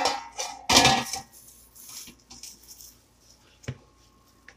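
A perforated stainless steel steamer tray clattering against a stainless steel pot as it is set in place. There is loud metal-on-metal clanking in the first second, then a few faint clinks, and a sharp knock near the end that leaves a brief ring.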